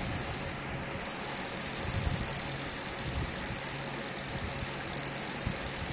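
Hobby servo motors of a small desktop robotic arm running as the arm swings and turns back to its home position.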